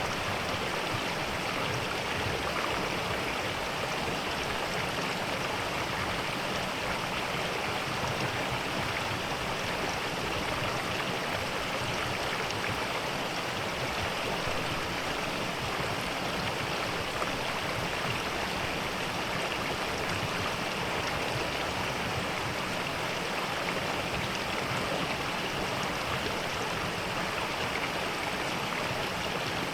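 Mountain stream rushing over rocks, a steady unbroken water sound.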